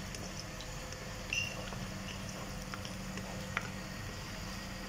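Sliced onions frying in ghee in a nonstick wok: a steady low sizzle, with a few light ticks and scrapes of the spatula against the pan. The onions are being fried to light brown.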